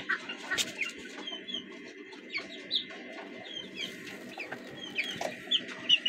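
A brood of young desi chicks peeping: many short, high chirps scattered throughout over a steady low background noise.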